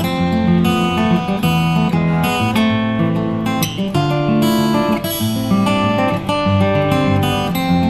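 Background music: guitar playing plucked notes and strums at a steady pace.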